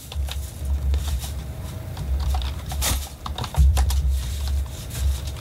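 Computer keyboard typing: a run of irregular keystroke clicks as a short phrase is typed, over a low rumble.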